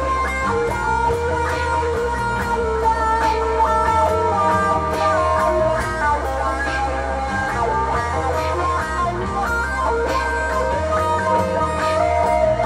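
Electric guitar music: a solid-body electric guitar played through an amplifier over layered, looped guitar parts, with a low bass line underneath.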